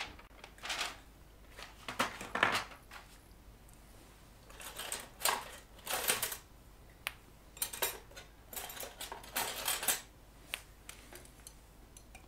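Tools and small metal parts being handled on a workbench: irregular clinks, rattles and rustles, with a few single sharp clicks near the end.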